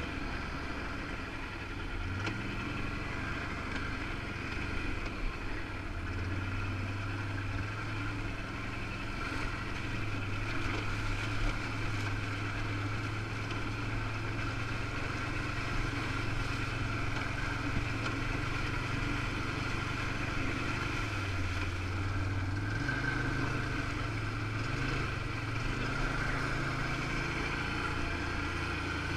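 Can-Am Outlander 1000 XT ATV's V-twin engine running under way, its pitch stepping up and down with the throttle several times.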